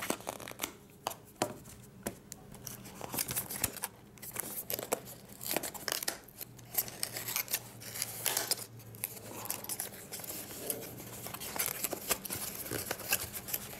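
Small paperboard retail box being opened by hand: its tuck flap pried up and pulled out, with irregular scraping, rubbing and sharp snaps of the cardboard.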